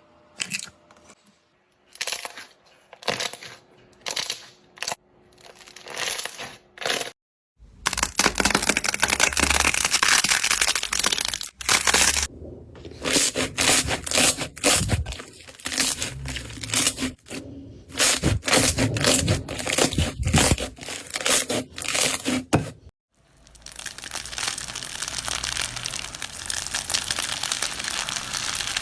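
Slime being handled close up, crackling and popping. A few separate pops come first, then dense, continuous crackling, broken by brief pauses.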